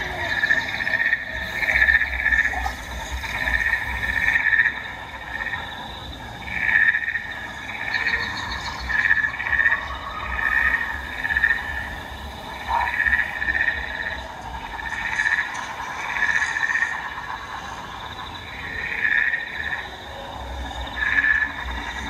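Frog-like croaking calls repeating every second or so, over a steady high insect-like trilling.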